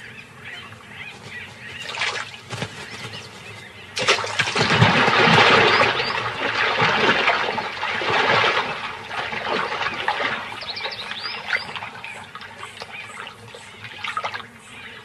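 Bee-eaters calling in short high chirps, then about four seconds in a sudden loud splash as a crocodile lunges out of the water, the water churning for several seconds before it dies down. More bee-eater chirps come near the end.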